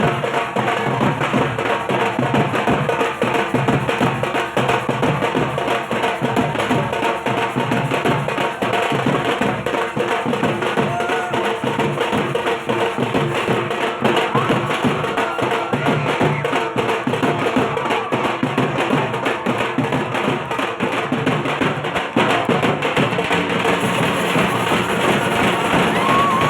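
Dhak, the Bengali barrel drum, beaten with sticks in a fast, unbroken rhythm of sharp, dense strokes.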